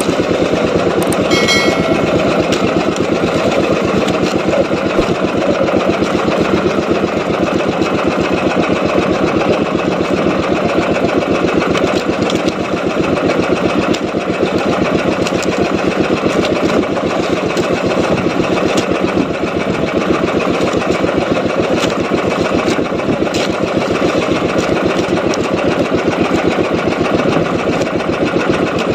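Small boat engine running steadily with a fast, even pulse.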